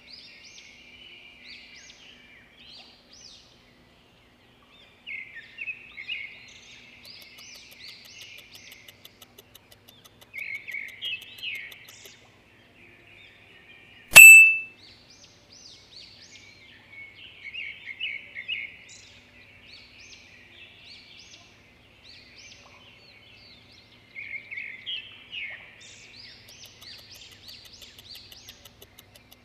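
Birds chirping and singing in short repeated phrases, a nature-sound background track. About halfway through, a single loud, sharp ding rings briefly.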